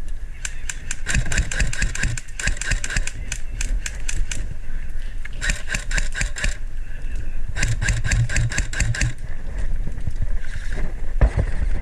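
Airsoft electric gun firing three full-auto bursts of rapid clicking shots, each burst one to four seconds long, with the gearbox motor humming under the last one.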